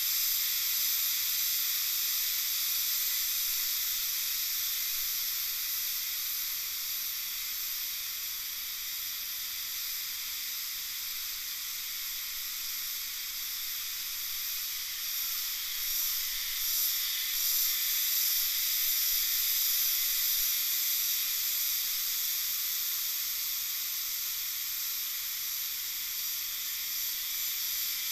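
Steady, high-pitched insect chorus of several shrill drones layered at different pitches, droning on without a break.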